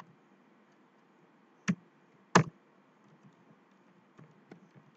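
Computer keyboard keystrokes as a word is deleted and retyped: a few separate clicks, two louder ones a little under two seconds and two and a half seconds in, then fainter taps near the end.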